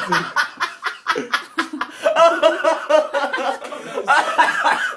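People laughing, in rapid bursts, through the whole stretch.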